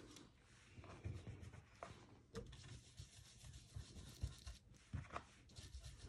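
Faint rubbing of a round ink blending brush worked over a stencil on paper, with a few soft knocks scattered through.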